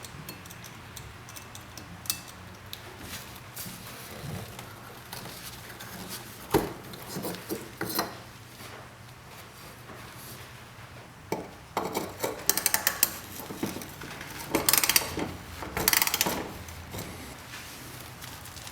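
Hard parts clinking, knocking and rattling as they are handled, with scattered single knocks and two busier spells of rapid clattering in the second half.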